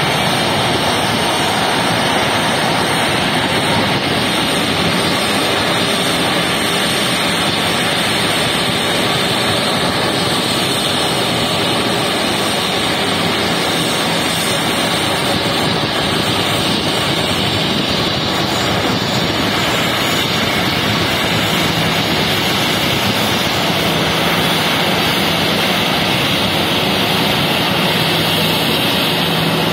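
Boeing 737 airliner's jet engines running at taxi power: a steady, loud rush with a high whine.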